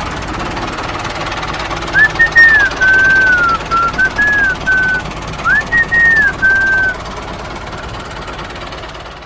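Small engine of a DIY mini tractor running steadily with a rapid knocking beat. From about two seconds in to about seven, a high whistled tune of a few gliding notes plays over it, louder than the engine. The engine fades away near the end.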